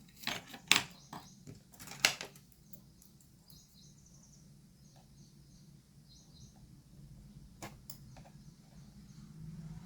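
Sharp clicks and taps of small laptop parts and screws being handled during disassembly, loudest in the first two seconds, with two more about eight seconds in. Faint bird chirps can be heard in the background.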